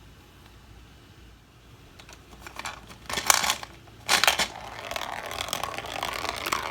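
Hard plastic clattering and knocks from a toy gumball machine dispensing a capsule. The clattering starts about two seconds in, has two sharp knocks, and runs on as a steady rattle.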